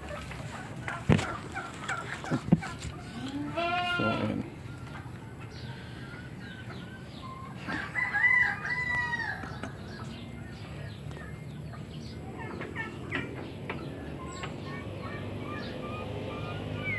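A rooster crowing, with two long calls about four and eight seconds in, and chickens clucking around it. Two sharp knocks come in the first few seconds.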